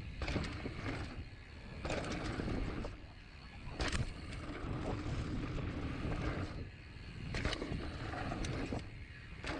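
Mountain bike riding fast down a dirt trail: tyres rolling on packed dirt, wind rumbling on the camera microphone, and a few sharp knocks as the bike rattles over bumps.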